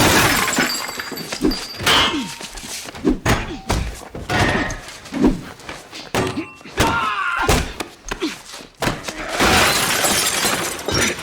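Action-film sound effects: a rapid series of impacts, thuds and crashes, with glass breaking.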